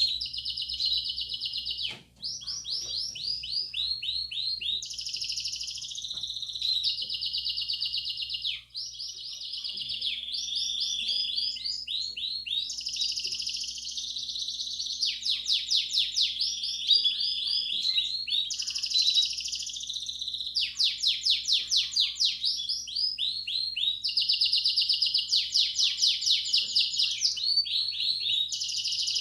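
Belgian canary singing the 'campainha' (bell) song: a continuous run of fast trills and rolling repeated notes that shift from phrase to phrase, breaking off briefly twice. It is the kind of song played to young canaries to get them singing.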